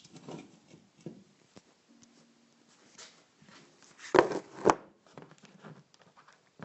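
Scattered light knocks and handling noises, with two louder knocks in quick succession about four seconds in.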